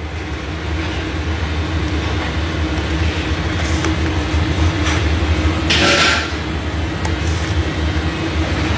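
Steady low mechanical rumble of running machinery, with a short hiss about six seconds in.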